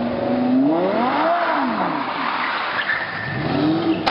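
Sports car engine revving as the car pulls through a turn: the revs climb and drop about a second in, then climb again near the end, with some tyre squeal.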